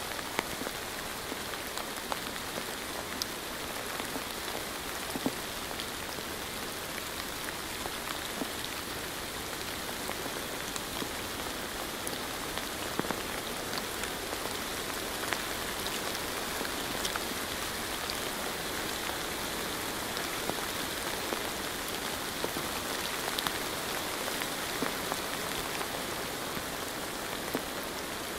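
Steady rain falling, a constant hiss with many separate drops ticking against a window.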